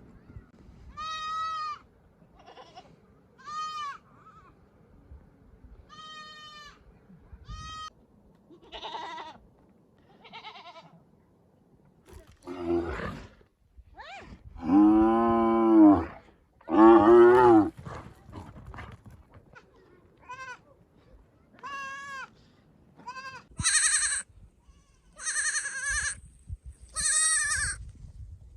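Lambs bleating in many short, high-pitched calls spread throughout, with two long, loud, lower-pitched bleats from an adult sheep around the middle.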